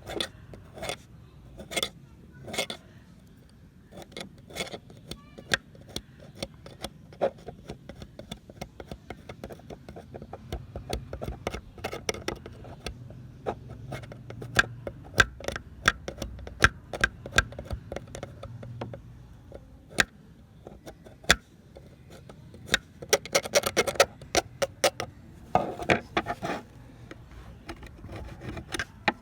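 Hand work on a pair of metal pliers: irregular sharp clicks and taps, with short bursts of scraping or rasping near the end.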